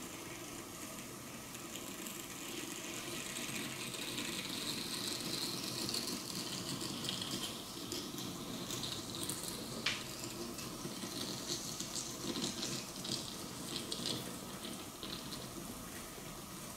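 Chocolate sizzling and crackling as it burns under a red-hot metal ball, with a sharp pop about ten seconds in.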